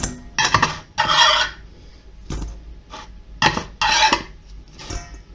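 Metal slotted turner scraping along a baking tray as baked pies are lifted off it, about half a dozen short, rasping scrapes with light metallic clinks.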